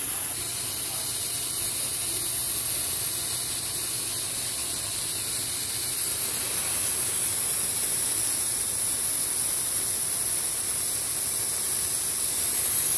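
A steady, even hiss with no distinct knocks or tones.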